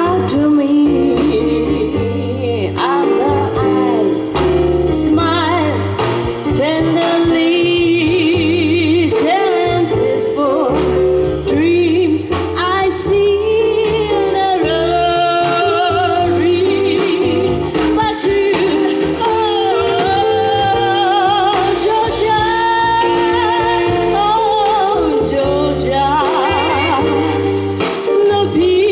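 Live jazz: a female vocalist sings a slow ballad with heavy vibrato, backed by an upright double bass and band.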